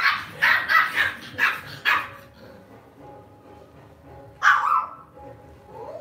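Lhasa Apso puppy barking during rough play: a quick run of about five sharp barks in the first two seconds, then one more bark about four and a half seconds in.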